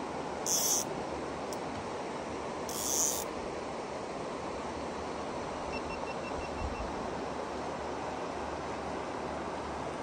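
River water running steadily past a drifting rowboat, an even rushing hiss. Two brief high-pitched buzzes cut in, about half a second and about three seconds in.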